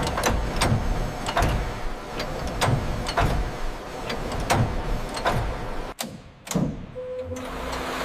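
A quick series of sharp knocks or clanks, about two a second, that cuts off suddenly about six seconds in. One more knock follows, then a steady hum with a held tone starts.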